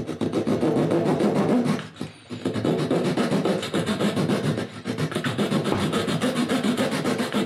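Fine-toothed razor saw cutting across a small wooden model bowsprit in quick back-and-forth strokes, with a brief pause about two seconds in.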